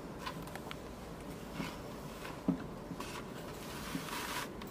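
Quiet room noise with a few faint clicks and a brief soft rustle near the end.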